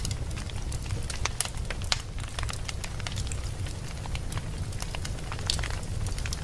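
Fire burning in a fireplace, with irregular sharp crackles and pops over a steady low rumble.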